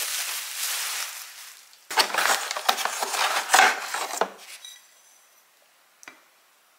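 Ceramic dishes being unpacked and handled: packaging and a cardboard box rustle as a plate is drawn out, with light clinks and knocks of the ceramic. A single small click comes about six seconds in.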